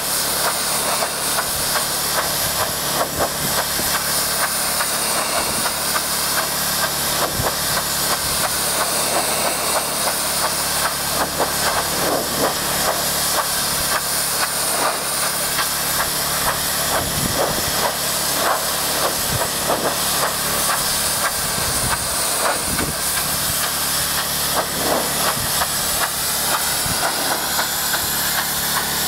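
Low-pressure water spray from a pressure-washer wand hissing steadily onto a barrel-tile roof during a water-only roof cleaning, with a pump engine running steadily underneath.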